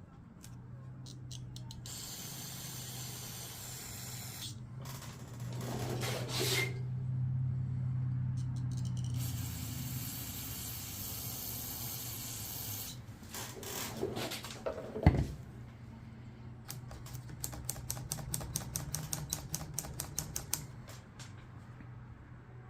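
Several long bursts of spray hissing while a small-engine carburetor is cleaned out, over a steady low hum. A loud sharp knock comes about fifteen seconds in, then a fast run of clicks near the end.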